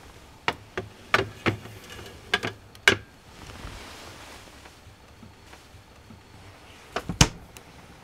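White enamel tray being set onto a refrigerator shelf, clinking and knocking against it: a run of sharp clicks in the first three seconds, then a louder double knock with a low thump about seven seconds in.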